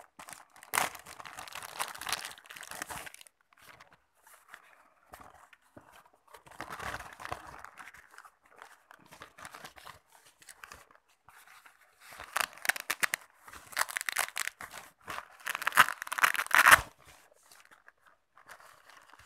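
Thin plastic bag crinkling and a nylon wallet rustling as it is handled, then a run of loud ripping sounds over several seconds as the Puma wallet's velcro closure is pulled apart.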